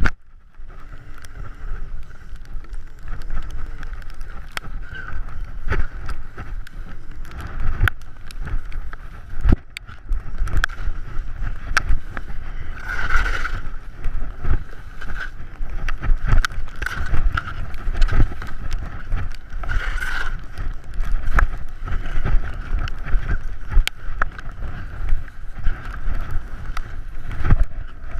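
Skis running downhill over snow, a steady scraping hiss, with rumbling wind buffeting on an action camera's microphone and frequent sharp clicks and knocks throughout.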